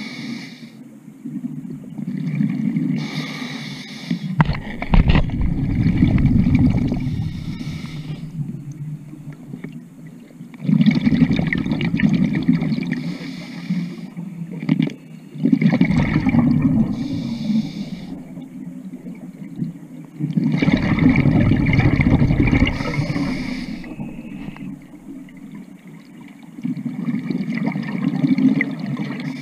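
A scuba diver's own breathing through a regulator: about five breaths, each exhale a loud surge of gurgling bubbles, with hissing between.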